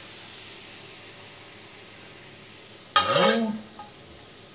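Mushrooms sizzling faintly in a hot frying pan while being plated. About three seconds in, a spatula gives one loud half-second scrape across the pan as it pushes the food out onto the plate.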